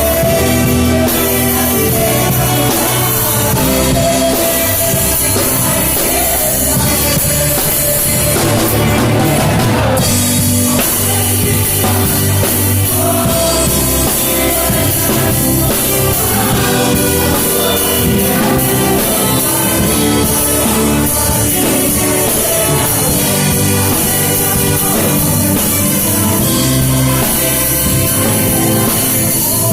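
Live church band and orchestra playing a Brazilian gospel praise song, with drum kit, guitar and singing.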